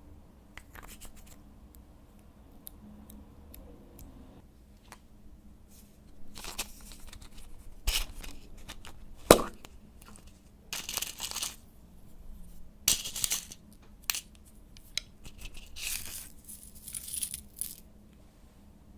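Slime being mixed and worked by hand, giving irregular bursts of sticky crackling and popping. There is one sharp click about nine seconds in.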